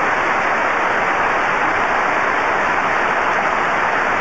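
A large audience applauding, a steady, even clapping.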